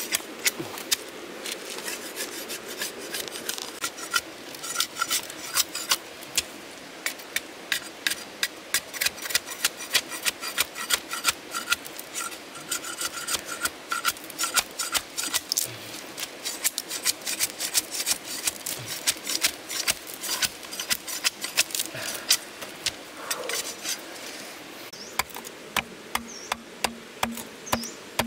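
A knife blade scraping and shaving a long bamboo strip in quick, repeated strokes, several a second, as the strip is shaped into a bow.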